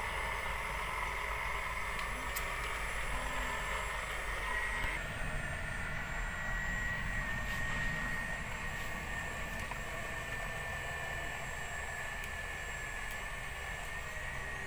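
Electric motor of an RC construction truck whining steadily over a low rumble. The whine changes abruptly about five seconds in and settles into a thinner, steady tone.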